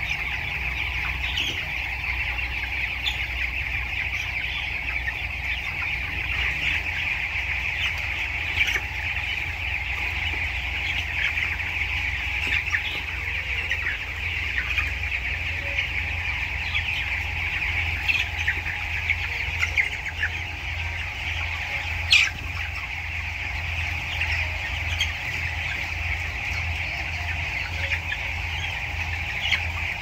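A large flock of broiler chickens calling together: a steady, dense chatter of cheeps and clucks over a low steady hum, with one louder, sharper call about two-thirds of the way through.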